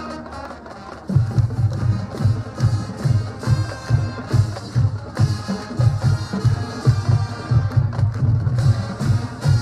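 Marching band playing: a held brass chord fades, then about a second in the drums come in with a loud, steady beat of about two strokes a second under the full band.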